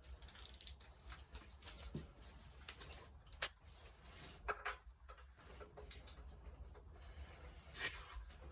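Scattered light clicks and metallic taps of hand tools and parts being worked on a car subframe, the sharpest click about three and a half seconds in.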